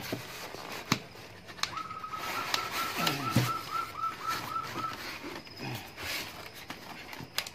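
Cardboard box and styrofoam packing handled as a water pump is worked out of it: sharp clicks and short falling squeaks of foam rubbing on cardboard. Behind it, from about two seconds in, a high whistled note runs for about three seconds and breaks into a quick, even warble.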